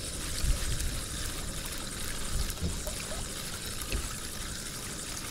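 Small waves lapping against a stony shore, a steady watery hiss with a few soft low thumps.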